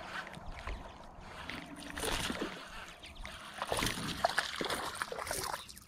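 A small hooked bass splashing at the surface as it is reeled in to the bank, in irregular bursts about two seconds in and again from about three and a half seconds.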